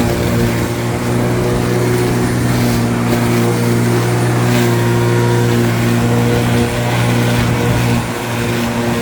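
Lawn mower running steadily, with a brief dip in level about eight seconds in.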